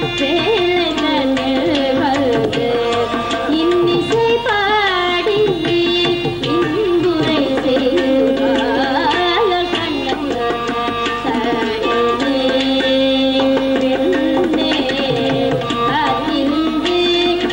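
Live Carnatic devotional music: a woman singing with gliding ornaments, shadowed by violin, over steady mridangam and ghatam strokes.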